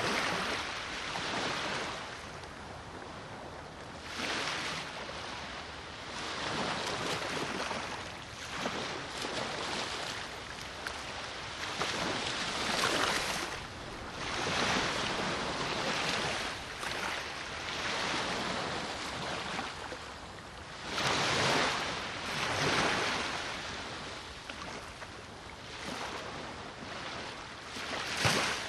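Sea waves washing in and receding, surging every few seconds, with wind in the background.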